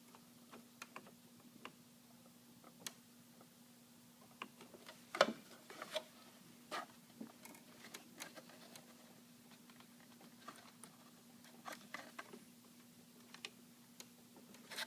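Irregular light clicks and taps of small plastic parts being handled as a replacement gear is worked into a copier bypass tray assembly, with a sharper knock about five seconds in, over a faint steady hum.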